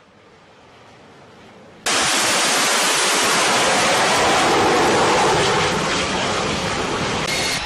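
Faint steady hiss, then about two seconds in a sudden jump to the loud, steady rushing roar of an F-35B Lightning II's jet engine on a ship's flight deck.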